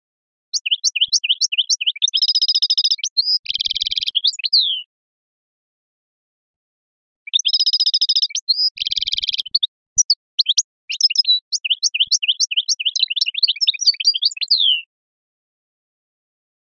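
European goldfinch singing a phrase-rich 'sharqi' (Eastern-style) song: two long bouts of rapid high twittering mixed with buzzy trills, separated by a pause of a couple of seconds.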